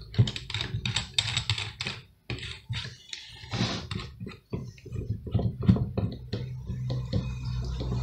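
Drill chuck being twisted by hand to clamp a hole saw mandrel: irregular, rapid metallic clicks and rattles.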